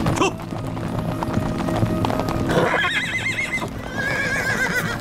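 Horses' hooves clip-clopping on a dirt trail as riders approach, and a horse whinnies twice with a wavering call, about two and a half and four seconds in, over background music.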